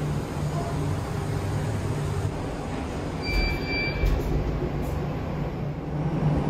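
Steady low mechanical hum of airport gate and jet-bridge ambience. A short electronic beep sounds about three seconds in, with a couple of low bumps around it.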